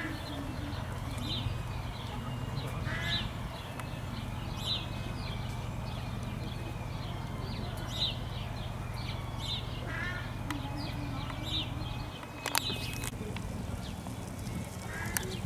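Birds chirping, short high calls repeating about every second and a half, over a steady low hum, with a couple of sharp clicks late on.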